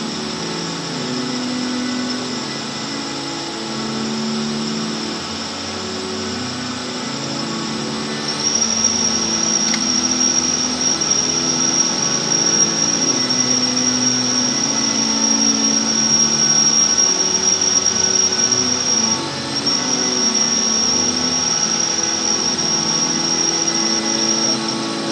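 Inside a car's cabin: low music from the stereo, then from about eight seconds in, as the car pulls away and drives, the cabin noise grows louder and a steady high-pitched whine joins it, dropping out briefly once and stopping as the car slows for the next light near the end.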